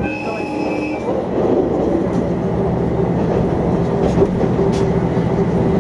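Diesel railcar running along the line, heard from inside the passenger cabin: a steady engine and running drone with a few wheel clicks over the rail joints.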